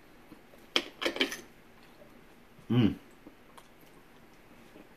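A metal fork clicking against a ceramic plate a few times in the first second and a half, followed by one short hum from a person's voice near the middle.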